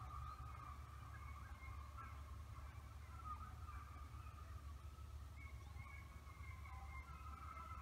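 Faint chorus of distant animal calls, continuous and wavering, over a low steady rumble.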